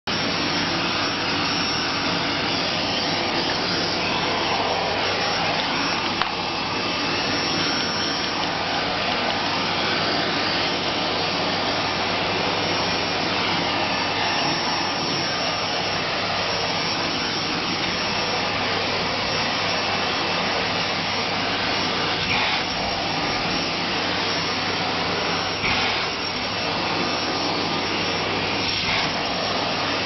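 Vacuum cleaner running steadily: a continuous even rushing noise over a low motor hum, with a few brief knocks.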